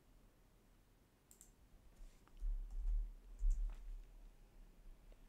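A few faint, sharp computer mouse and keyboard clicks, spaced irregularly, with a low rumble about halfway through.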